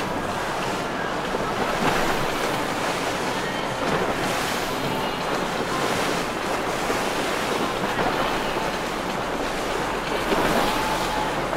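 Steady rush of waves and wind buffeting the microphone, with a low drone of boat engines underneath.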